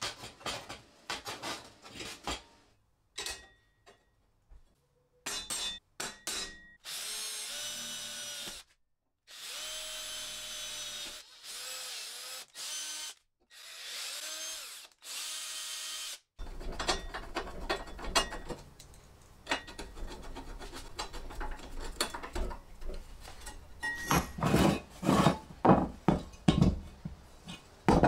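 Cordless drill boring holes in a welded steel frame: four short runs, each a steady whine that stops as the trigger is released. Before them come light clicks of steel being handled, and after them a stretch of knocks and scrapes, loudest near the end, as the steel frame is moved about on a wooden bench.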